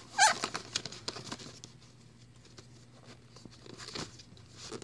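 Fingers scratching, tapping and rubbing on a small cardboard retail box while trying to pry it open one-handed. The scratches and light knocks come in short, irregular bunches, busiest in the first second and again near the end.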